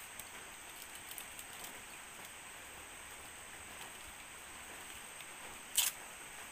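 Leaf wrapper of a steamed sticky-rice parcel crackling and rustling as it is peeled open by hand, light crackles at first and one louder crinkle near the end, over a steady background hiss.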